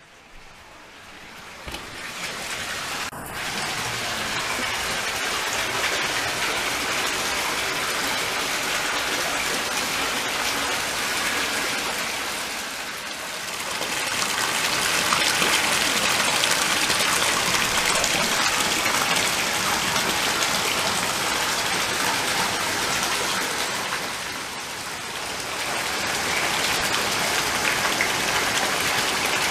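Hot-spring water pouring from pipes and splashing into an outdoor bath, a steady rushing splash that fades in over the first few seconds. There is a brief click about three seconds in.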